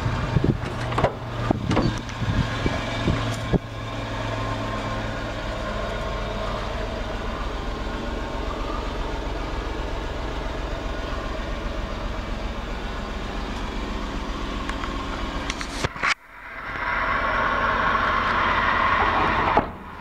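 Suzuki Carry kei truck's small three-cylinder engine idling steadily. Clicks and knocks of the door being handled come over it in the first few seconds. About 16 seconds in there is a sharp knock, the sound drops away suddenly, then builds up again.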